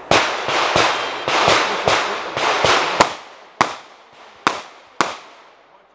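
Subcompact CZ 2075 RAMI 9mm pistol firing a string of shots, about four a second for the first three seconds, then several more spaced roughly half a second or more apart.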